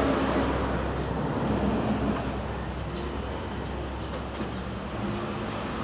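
Steady vehicle noise: a low engine hum under a constant traffic hiss.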